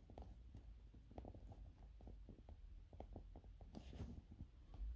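Near silence with faint, irregular soft clicks from fingers turning the crown of a quartz wristwatch to set the hands. A slightly louder brush of handling comes about four seconds in.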